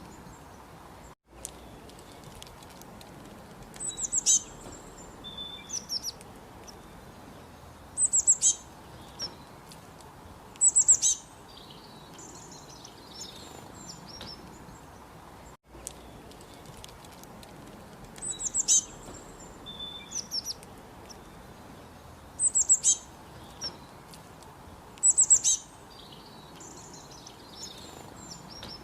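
Small birds chirping in short, high clusters of quick falling notes over a steady faint hiss. The same sequence of calls repeats about every 14 seconds, as in a looped recording.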